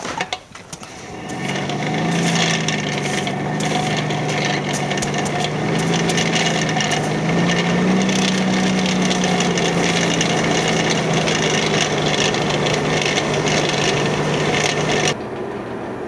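Forge blower running, feeding air into a burning forge fire: it spins up over the first couple of seconds, then holds a steady hum whose pitch wavers slightly, with scattered crackles from the fire over it. It stops abruptly about fifteen seconds in.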